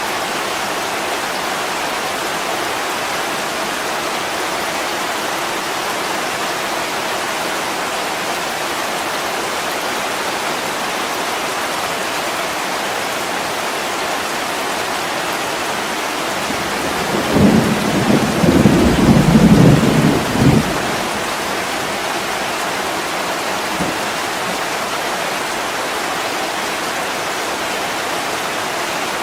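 Heavy rain falling steadily, with a roll of thunder rumbling for about four seconds a little past the middle.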